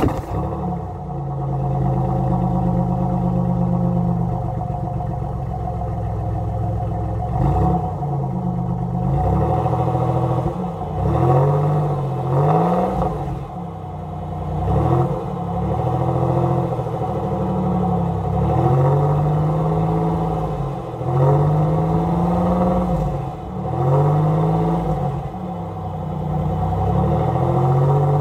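1988 Oldsmobile Ninety-Eight Regency Brougham's 3.8-litre V6 heard at the exhaust tip, freshly started and idling for several seconds. It is then revved and let back down about ten times, each rev a rise and fall in pitch.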